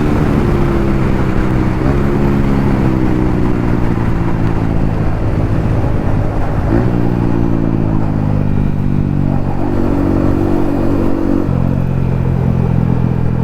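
Yamaha MT-15's single-cylinder engine running through an aftermarket Akrapovic exhaust on the move, its pitch easing down slowly and picking up again a few times with throttle and gear changes.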